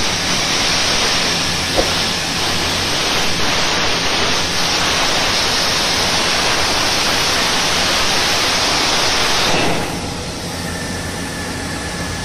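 Plasma cutter cutting a steel plate, a loud steady hiss that cuts off about ten seconds in. A quieter steady hum is left after it.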